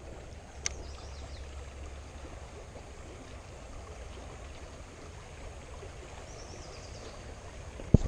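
Shallow river water running steadily over a stony riffle, with a single sharp click about a second in and faint high chirps shortly after and again near the end.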